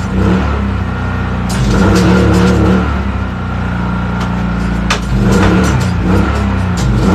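Tire changer machine running while a new tire is mounted on a rim: a steady motor hum that stops and restarts, with sharp metallic clicks. The machine is flexing under the load of the tire bead.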